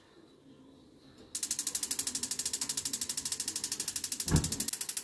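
Gas hob's electric spark igniter clicking rapidly and evenly, over a dozen clicks a second, as a burner is lit. The clicking starts about a second in and stops abruptly at the end, with a low thump about four seconds in.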